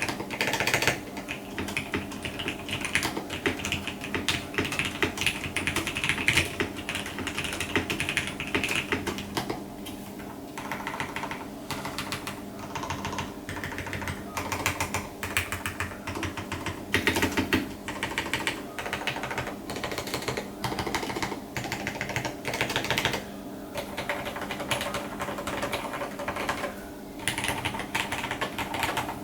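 Continuous typing on a Matrix 8XV2.0 Additional mechanical keyboard with lubed vintage Cherry MX Black linear switches in a full aluminium plate, capped with original dye-sub keycaps. Keystrokes come in quick, dense runs with short pauses.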